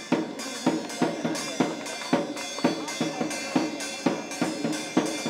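A steady drum beat, about two strikes a second, with ringing overtones held between the strikes.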